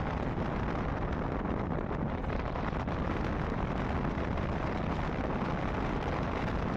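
Steady wind rush on the microphone and road noise from a moving motorcycle at speed.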